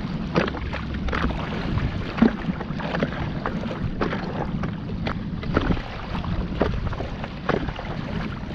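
Water slapping and splashing against a paddleboard in irregular sharp slaps, over a steady low rumble of wind on the microphone.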